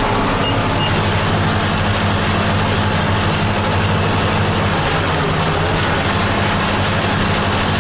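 New Holland 8160 tractor's diesel engine running steadily while it pulls and drives a New Holland BR780 round baler through the 1000 rpm PTO, baling at about 6 mph. It is a continuous drone, and the engine note shifts slightly about five seconds in.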